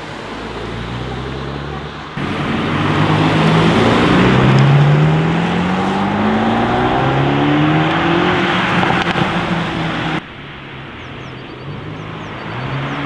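Mercedes-AMG GT Black Series's twin-turbo V8 running at a low steady note, then, after an abrupt jump in loudness about two seconds in, accelerating hard with its pitch rising for several seconds. About ten seconds in it drops abruptly back to a low steady note.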